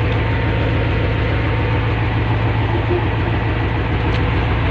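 A fishing boat's engine running steadily, a loud, even low drone.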